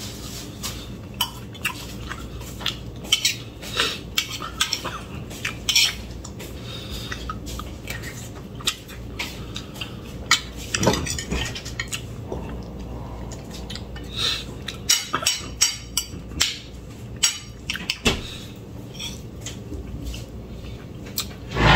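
Metal spoon and fork clinking and scraping against a ceramic plate and bowl while eating: irregular, scattered clicks. A louder thump comes right at the end.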